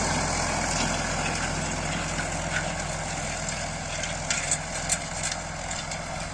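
Fiat 615 tractor's diesel engine running steadily as it pulls a disc harrow through ploughed soil, slowly fading as the tractor moves away. A few sharp clicks about four to five seconds in.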